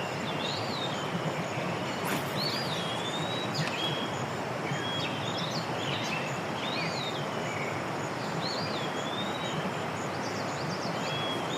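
Steady rush of flowing creek water, with a songbird repeatedly singing short swooping whistled phrases over it.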